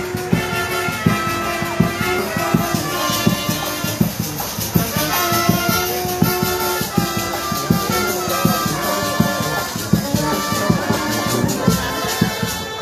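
A Salvadoran village brass band playing live: horns hold melody notes over a steady percussion beat.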